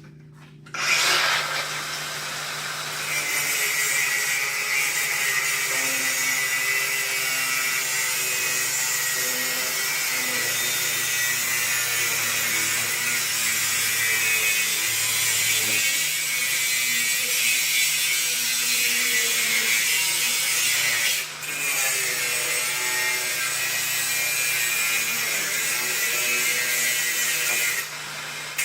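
Angle grinder fitted with a cutting disc, spinning up and then cutting under load, a steady harsh grinding hiss. It eases off briefly about 21 seconds in and again just before the end.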